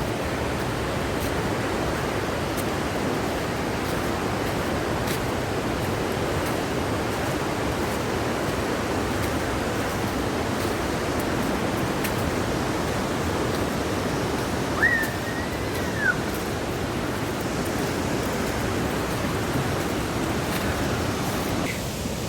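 Waterfall roar: a steady, even rush of falling water. About fifteen seconds in, a brief high whistle-like tone rises, holds and drops away.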